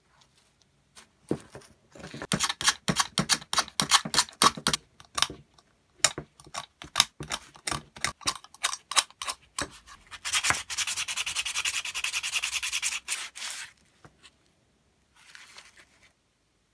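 Sandpaper rubbed by hand over a wooden Stanley No. 4½ plane knob, taking the old dark finish down to bare wood. First come many quick, uneven strokes, then a few seconds of fast, even back-and-forth scrubbing, and one short last pass near the end.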